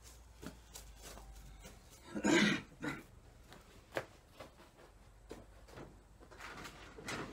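Scattered knocks and clinks of work on a tractor engine during a water pump replacement, with one louder clatter about two seconds in and a sharp knock about four seconds in.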